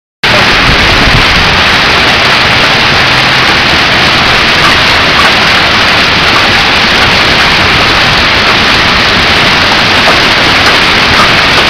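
Hailstorm: hail and heavy rain pelting down on lawns, street and roofs, a loud, dense and steady rush of noise that starts abruptly.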